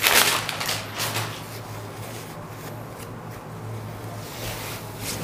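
Rustling of a printed soft-silk saree and its white paper insert as they are unfolded and smoothed out by hand. The rustle is loudest in the first second, then continues more softly, over a low steady hum.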